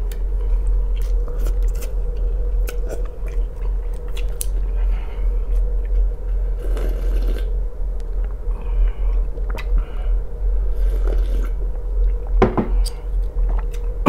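Close-miked chewing and eating of soft noodles with tinned sprats in tomato sauce and rye bread, with scattered light clicks of wooden chopsticks on a glass bowl and a slurp from the bowl about seven seconds in. A steady low hum runs underneath.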